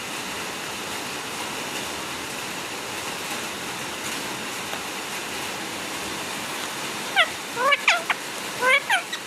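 A steady rushing hiss, and from about seven seconds in a parrot gives a quick series of short, rising calls.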